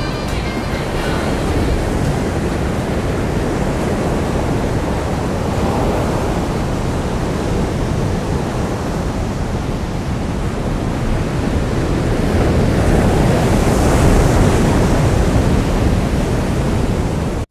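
Ocean surf breaking, a steady rushing roar mixed with wind buffeting the microphone. It swells louder about twelve seconds in.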